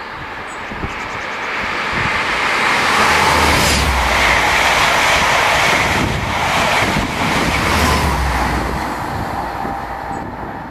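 Diesel InterCity 125 High Speed Train passing at speed just below: rumble of its power car engines and wheels on rail, with a few clacks over the joints. It swells to a peak as the leading power car and coaches go by, surges again at the rear power car, and fades near the end.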